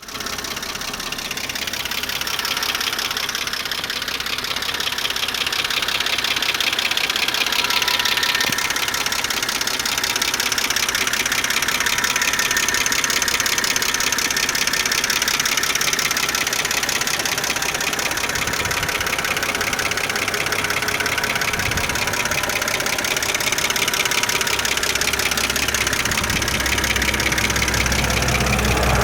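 BMW N52B25 inline-six engine running with a fast, steady ticking, a tick that persists after the lifters were replaced.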